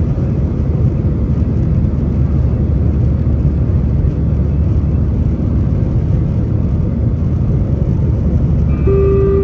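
Cabin noise of an Airbus A320-214 in its climb after takeoff: the CFM56 engines and rushing air make a loud, steady low rumble. A steady held tone begins near the end.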